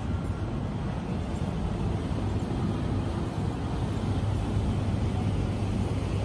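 Steady low rumble of city street traffic, with no single vehicle standing out.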